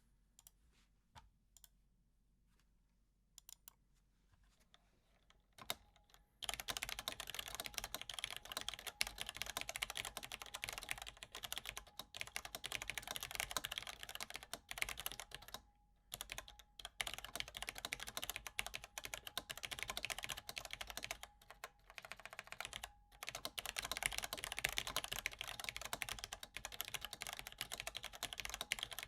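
Cherry MX Black linear switches on a steel plate in a vintage Allen-Bradley 1784-T50A industrial terminal keyboard being typed on. A few scattered keystrokes come first, then fast continuous typing starts about six seconds in, with a couple of brief pauses.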